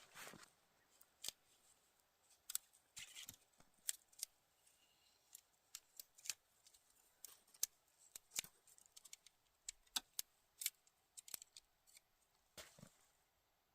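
Irregular sharp clicks and brief scratchy rustles of tent gear being handled while a tent is pitched in snow, several in quick succession at times.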